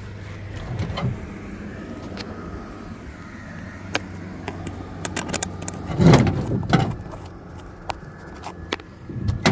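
Handling on an aluminum boat's diamond-plate deck: scattered clicks and knocks, then a louder clattering rustle about six seconds in, over a steady low hum.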